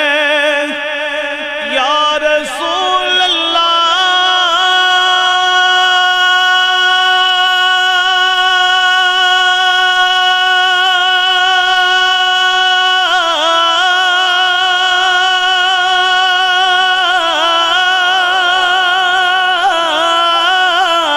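A man's voice singing a naat, drawing out long melismatic notes with vibrato: a wavering passage, a long steady held note in the middle, then winding ornaments as the pitch moves again.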